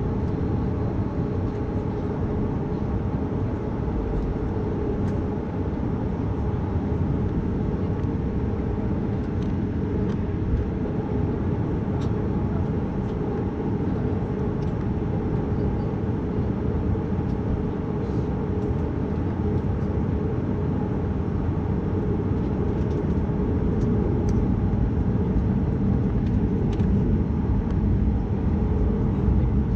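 Steady cabin rumble of a Boeing 737 MAX 8 taxiing, its CFM LEAP-1B engines at idle, growing a little louder near the end, with a few faint clicks.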